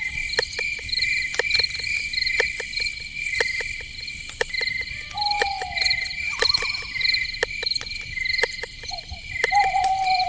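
Night forest ambience: crickets chirping in a steady pulsing trill, with sharp clicking calls about twice a second and a few short falling whistled calls around the middle and near the end.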